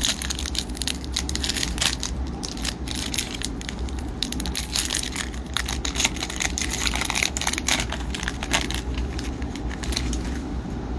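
Hockey card pack wrapper crinkling and crackling as it is torn open and handled, in dense irregular crackles over a steady low hum.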